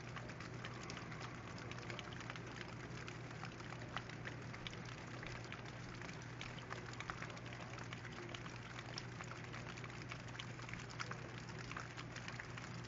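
Gentle rain falling, a steady fine patter of many small drops. A low steady hum runs underneath.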